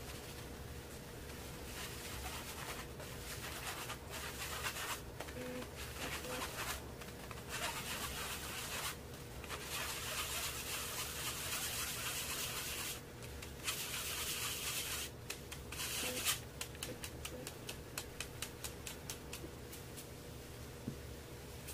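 Powdered sugar and cornstarch being rubbed by hand through a fine-mesh metal sieve: a scratchy rubbing hiss of powder against the mesh, in stretches with short pauses. It gives way to a run of quick light ticks over the last few seconds.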